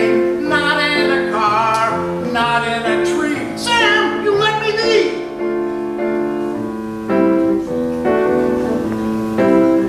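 Two male voices singing a duet with piano accompaniment; about halfway through the voices stop and the piano plays on alone.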